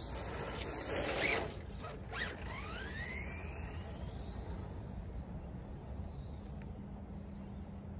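Radio-controlled car driving on asphalt: a rush of tyre and drivetrain noise that peaks about a second in, then a motor whine that dips and rises sharply in pitch as the car speeds away and fades.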